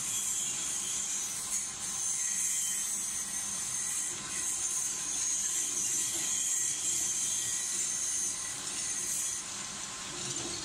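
Industrial carton shredder running steadily as it cuts printed paperboard cartons and laminated pouches into strips: a continuous high hiss over a steady machine hum.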